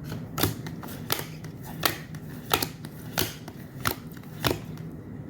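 Stiff photocards being flicked through one at a time by hand, a sharp card click about every two-thirds of a second.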